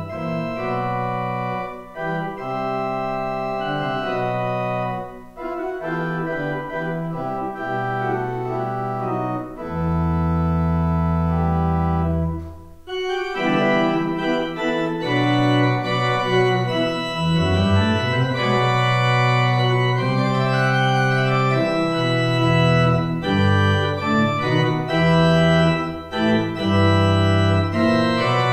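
Film score of sustained organ-like keyboard chords that change every second or two, with a long low chord just before a brief break about thirteen seconds in, then fuller and louder chords.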